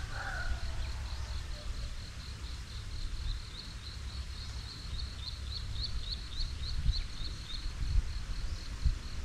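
A high chirping call repeated evenly, about three times a second, over a low outdoor rumble. A rooster's crow trails off in the first half second, and a few soft knocks come near the end.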